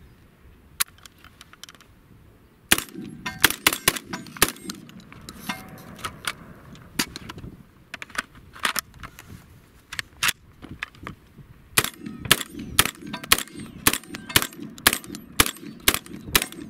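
Catamount Fury II 12-gauge semi-automatic shotgun firing two quick strings of shots. The first string starts about three seconds in and the second about twelve seconds in, with a few seconds' pause between them.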